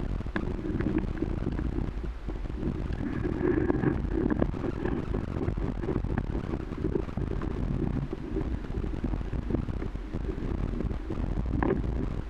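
Wind buffeting the microphone, with a motorcycle running at low speed underneath.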